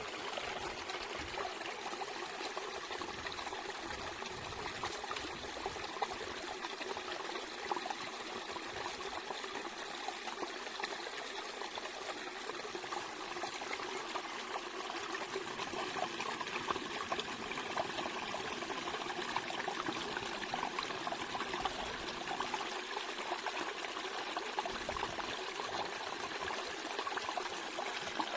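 Running water trickling and splashing steadily, a light sound with no deep rumble.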